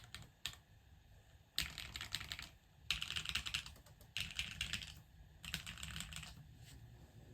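Typing on a Unikorn R2.1 60% mechanical keyboard with lubed long-pole JWK Poseidon switches, O-ring mounted on a carbon fibre plate, with GMK keycaps: a few single keystrokes, then four quick bursts of rapid keystrokes with short pauses between.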